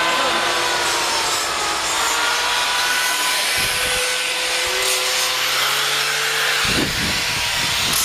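Angle grinder running against a carved wooden sculpture, grinding and smoothing the wood: a steady high motor whine over rough rasping noise, its pitch wavering slightly. A low rumble joins near the end.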